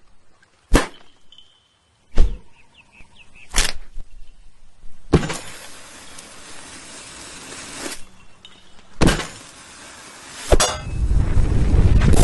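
A string of separate sharp hits and knocks, one every second or two, with a hissing stretch in the middle and a loud low rumble near the end. They sound like cartoon-style sound effects.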